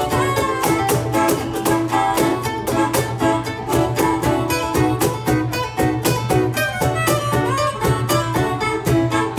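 Live band playing an instrumental passage: acoustic guitar, electric bass and a drum kit keeping a steady beat, with a harmonica carrying the melody.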